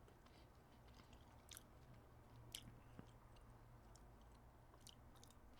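Near silence, with a few faint, soft clicks of a person chewing food with the mouth closed.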